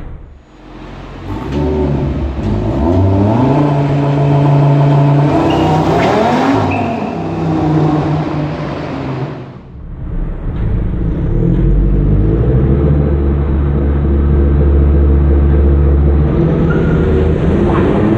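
Audi RS3's 2.5 TFSI five-cylinder turbo engine revving under launch control with the handbrake pulled, in a parking garage: the revs climb and hold steady for a couple of seconds, climb again, drop off about ten seconds in, settle into a deep steady drone, then rise again near the end as the car pulls away.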